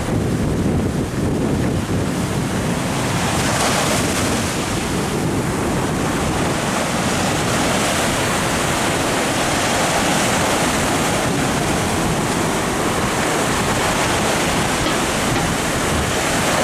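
Sea surf breaking against rocks and washing up a sandy beach: a steady, loud rush of water.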